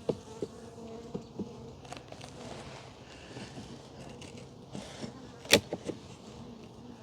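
Honey bees buzzing in a steady hum around an open hive, with a few sharp knocks; the loudest comes about five and a half seconds in.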